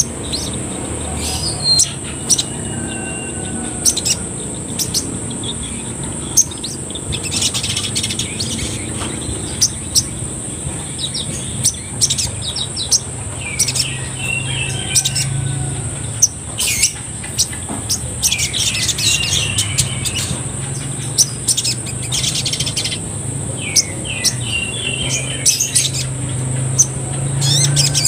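Male olive-backed sunbird (sogon) calling in a cage: bursts of sharp chirps and rapid twitters, repeated again and again, over a steady high-pitched tone.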